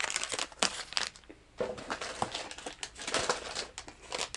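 Plastic soft-bait lure packages crinkling as they are handled, in two spells of dense crackling with a short pause about a second and a half in.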